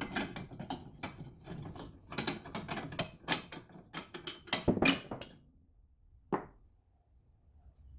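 Ratchet wrench clicking as the bolts holding a wood lathe's tool rest and tailstock are undone: a quick, uneven run of clicks for about five seconds, then one last sharp knock.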